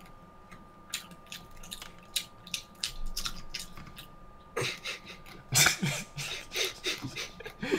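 Wet, sticky mouth clicks and smacks close to a microphone, like walking barefoot on a wet, sticky floor: sparse at first, then coming thick and fast from a little past halfway. A faint steady high tone runs underneath.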